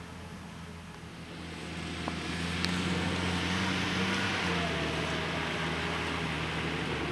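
Fendt Vario 716 tractor's engine running steadily as it hauls a Pöttinger Europrofi loader wagon, a low hum. A broad rushing noise swells in about two seconds in and stays louder.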